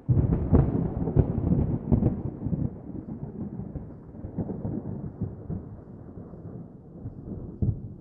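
A loud, low rumble that starts suddenly, with rough peaks over the first two seconds, then slowly dies away.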